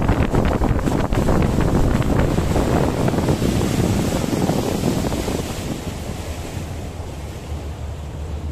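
Wind buffeting the microphone and water rushing past a speedboat under way, over the steady low drone of its engine. The rush eases off about five and a half seconds in.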